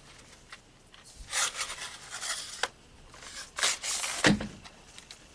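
Handling noise: a few bursts of rubbing and scraping with several sharp clicks, as equipment is picked up and moved about.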